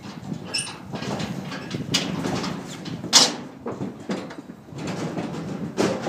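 Irregular bangs, knocks and scraping on a wood-and-metal animal transport crate, with the loudest bang about three seconds in.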